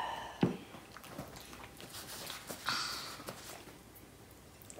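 Eating soft crème caramel: quiet mouth and chewing sounds with a few short light clicks and knocks, and a brief pitched vocal sound right at the start.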